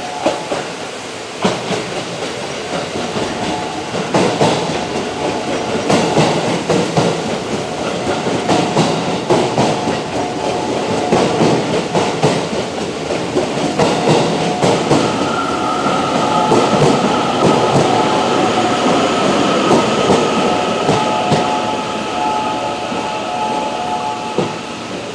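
JR West 207 series electric commuter train pulling into a station platform and braking, with repeated clacks of its wheels over rail joints. About fifteen seconds in, a steady whine joins as it slows toward a stop.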